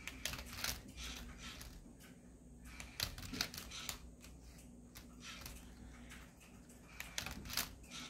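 Lego Boost robot solving a Rubik's Cube: irregular plastic clicks and clacks as the motors flip the cube and turn its layers, over a faint steady motor hum.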